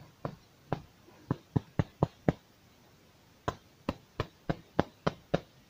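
Sharp taps and clicks in two runs of about seven each, roughly three a second, with a pause of about a second between them: hard objects being handled and knocked together.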